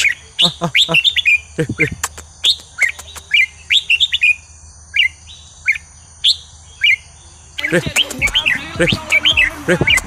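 Red-whiskered bulbul singing short, liquid whistled phrases, with a pause of a few seconds in the middle before the phrases come thick and fast again near the end.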